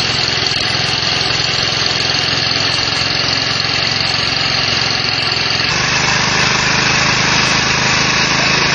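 Motor of a core cutter machine running steadily as its core bit is fed down into a concrete block to cut a cylindrical sample. The drone changes tone about six seconds in.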